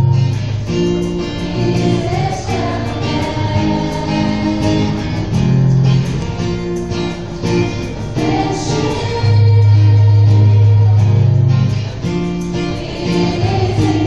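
Live acoustic music: an acoustic guitar played under a small group of women singing together into microphones.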